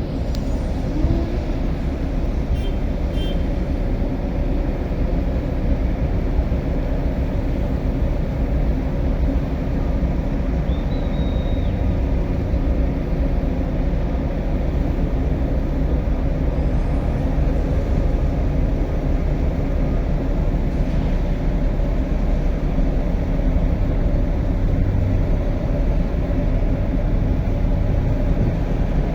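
Steady low rumble of a ship's diesel engines running during an unberthing manoeuvre, with a faint constant hum over it.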